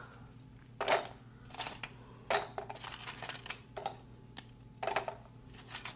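Hard peanut brittle being snapped apart by hand and the pieces dropped into a plastic bucket: a series of irregular sharp cracks and clicks.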